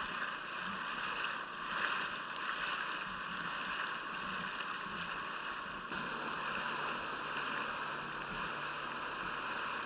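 Steady rush of water and wind noise heard from a small boat moving slowly on calm water.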